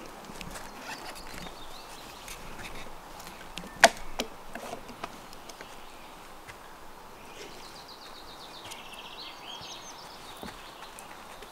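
Quiet outdoor ambience with a single sharp knock just before four seconds in, the loudest sound, and scattered faint ticks. In the second half a faint, high, rapidly repeating songbird trill.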